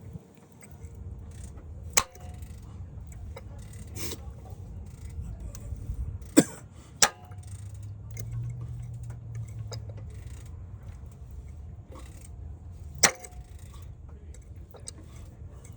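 GM 2.4 L inline-four engine running with a steady low rumble, broken by sharp pops at irregular intervals, about five over the stretch. The popping is the engine fault that the mechanic decides calls for pulling the cylinder head.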